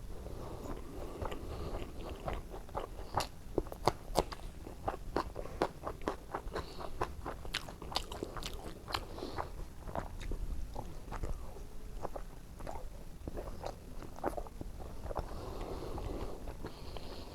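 Close-miked eating: wet chewing and smacking of rice and oily brinjal curry, with many irregular sharp clicks and crunches. The loudest crunches come around four seconds in.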